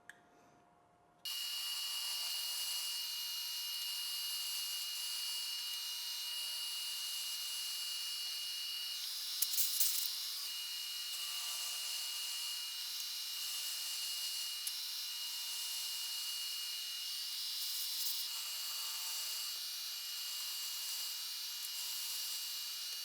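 Shop power tool running steadily: a high hiss with a steady whine, starting abruptly about a second in, with a brief louder scrape about halfway through.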